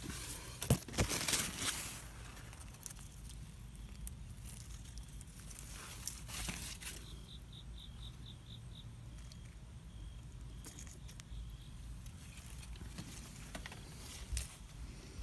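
Leaves and plant stems rustling and crackling in short bursts as foliage is pushed aside and a mantis is picked up by hand. A high insect chirp repeats in quick pulses about midway.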